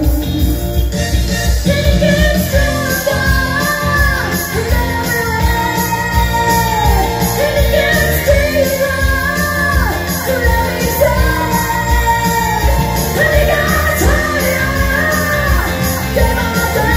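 Live upbeat pop song with women singing over a steady beat, heard from the audience in a large theatre.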